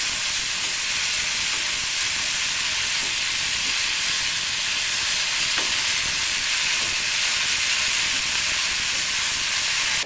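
Vegetable filling of carrot, bean sprouts and spring onion sizzling steadily in a frying pan with a little water added, stirred with a wooden spatula.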